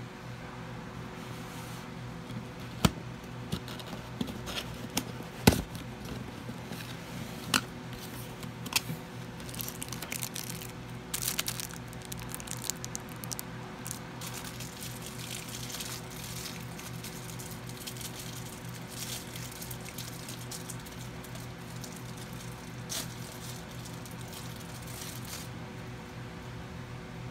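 Cardboard box being opened by hand: several sharp clicks and snaps of the card flap in the first ten seconds, then a few seconds of dense cardboard and packaging rustle, fading to faint occasional handling noise. A steady low hum runs underneath.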